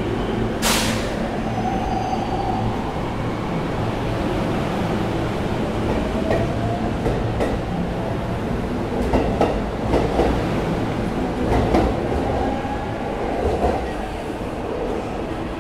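Train pulling out and running along the track: a sharp burst of air hiss just under a second in, then a steady rumble with a faint wavering whine and a run of clacks over the rail joints.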